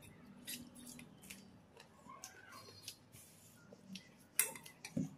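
Eating sounds: fingers mixing rice and chicken liver curry on a plate, with chewing and many short wet clicks and smacks; the loudest is a sharp click about four and a half seconds in.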